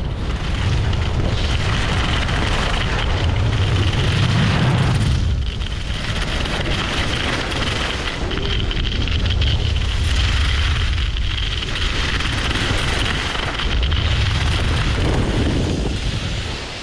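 Wind buffeting the GoPro Hero 8's microphone on a fast ski run, a heavy rumble over a steady hiss of skis sliding and scraping across chopped-up packed snow. It eases as the skier slows, dropping off just before the end.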